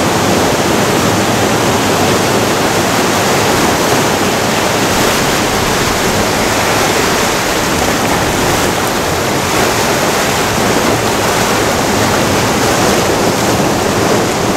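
Surf breaking and washing over rocks along the shore, a loud, steady rush of water.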